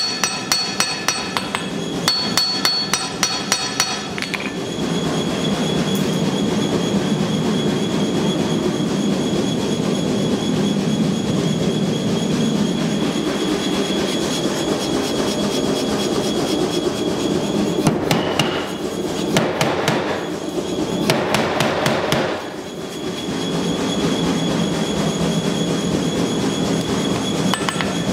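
Hand hammer striking hot steel on an anvil, with the anvil ringing, for the first few seconds; then the steady roar of the forge burner while the blade blank heats, with another short run of hammer blows about two-thirds of the way through.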